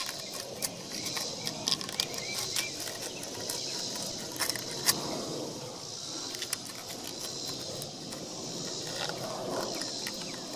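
Small scraping and clicking of sandpaper being worked inside a turn-signal bulb socket, rubbing rust off the contacts that cause its bad connection. A steady high chirring of insects runs behind it.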